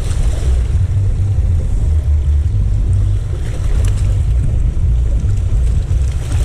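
Wind buffeting the microphone: a loud, steady low rumble that rises and falls.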